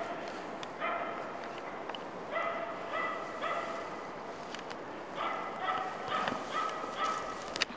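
A spitz hunting dog barking steadily and at a distance, in runs of several quick barks with short pauses. This is the bark a hunting spitz gives at found game to call the hunter to it.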